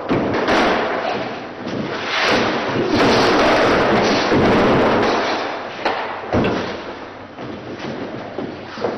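Thuds and scuffling of bodies and shoes on a wooden floor as fighters grapple, fall and roll, with a few sharp thumps of impact.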